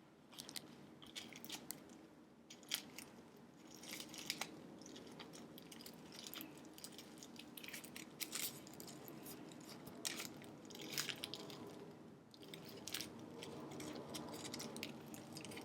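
Faint crinkling and rustling of small bags and packaging being handled, with scattered light clicks and ticks over a low steady hum.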